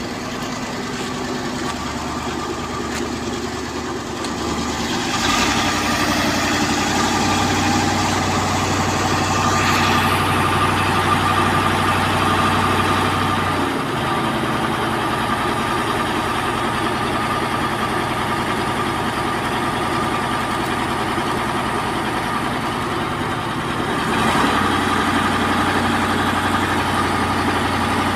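Heavy diesel engines running steadily at a construction site, from the truck crane hoisting a concrete girder and the trucks beside it. The engine note and loudness shift several times.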